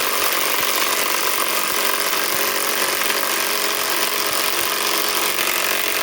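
Cordless compact 3/8-inch impact wrench hammering steadily as it drives a 6-inch lag screw. The noise is loud and unbroken.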